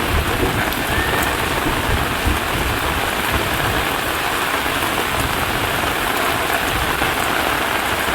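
Heavy rain falling steadily: a dense, even hiss that holds at one level throughout.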